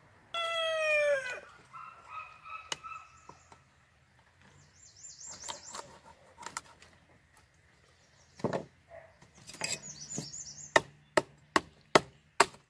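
A bird's loud call, about a second long and falling slightly in pitch, near the start, then high bird chirps now and then. Near the end comes a run of sharp, evenly spaced knocks, about two or three a second.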